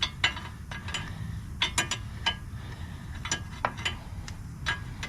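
Ratchet wrench tightening the castle nut on a tie rod end: short runs of ratchet clicks and metal clinks, coming in irregular groups.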